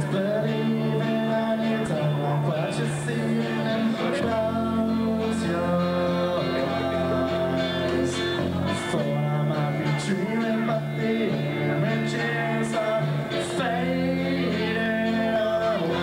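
Live band playing a ballad, a male singer singing over sustained guitar chords.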